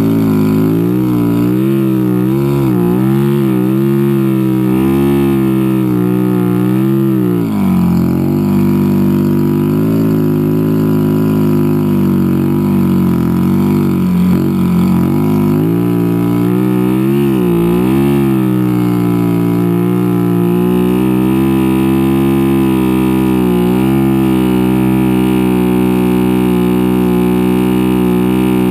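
Vehicle engine running under load, its revs rising and falling repeatedly for the first twenty seconds, with a deeper dip about seven seconds in, then holding steadier toward the end.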